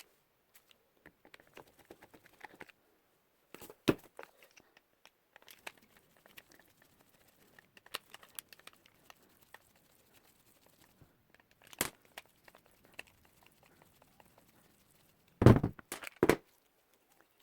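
Small parts being handled on a work surface: scattered crinkling and light clicks. There is a sharp knock about four seconds in, another about twelve seconds in, and a louder cluster of knocks near the end.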